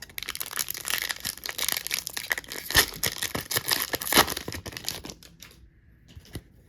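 A hockey card pack's foil wrapper being ripped open and crinkled, a dense crackling for about four seconds with a couple of sharper snaps, then only a few faint rustles.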